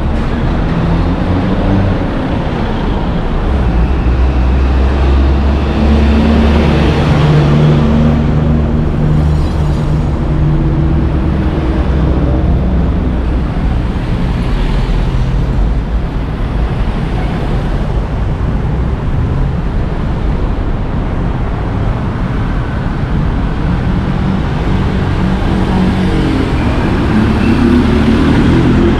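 Steady, loud road traffic with motor vehicles running and passing close by. A heavier engine hum stands out from about four to ten seconds in, and another vehicle passes near the end.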